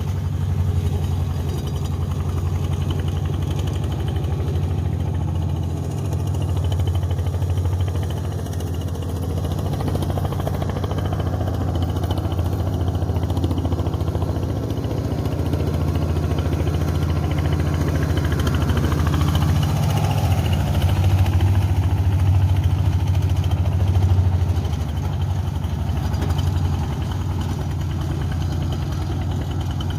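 Engine of a boat tractor (paddy-field plow tractor) running steadily, swelling slightly louder about two-thirds of the way through.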